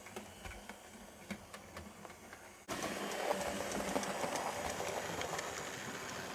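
Hornby OO gauge BR Standard Class 2MT model steam locomotive running along the track: its small electric motor whirring, with rapid light clicking from the wheels on the rails. It gets louder about three seconds in.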